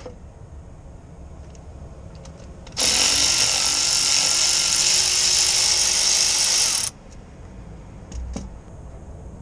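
A pressurised jet hissing steadily for about four seconds at the air compressor's fittings, starting and stopping abruptly.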